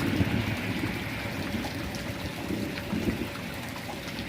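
Steady rain falling, with scattered drop ticks and a low rumble underneath that rises and falls.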